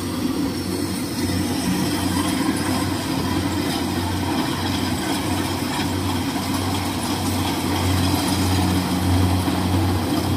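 Rice combine harvester's diesel engine running steadily while it cuts and threshes the standing rice, a constant low drone.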